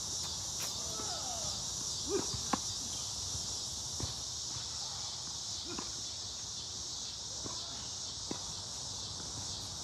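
Steady high-pitched chorus of insects calling, with several sharp pops of tennis balls struck by rackets at irregular intervals, the loudest about two and a half seconds in.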